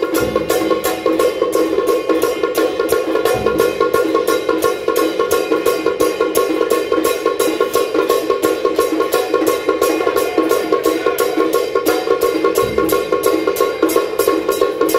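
Taiwanese temple procession percussion ensemble: hand cymbals, gongs and drum beating a fast, even rhythm of about four strokes a second, the metal ringing on between strokes. A few heavier drum strokes fall near the start, about three seconds in, and near the end.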